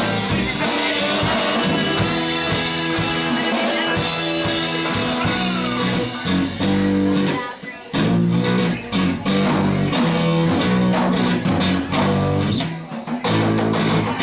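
Live rock band of guitars, bass and drums playing a song, with two short stops where the music drops out, about halfway through and again near the end.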